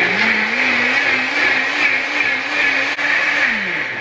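Countertop blender blending a smoothie. The motor spins up at the start, its pitch rising, then runs with a steady whirring hum. Shortly before the end it is switched off and winds down, the pitch falling.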